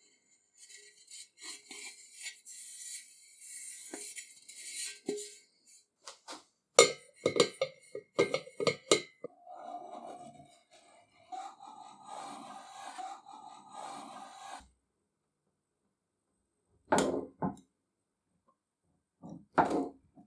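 Metalworking sounds in short edited takes: a high scraping hiss, then a run of sharp metallic clinks, then a few seconds of a steady machine hum, and two short knocks near the end.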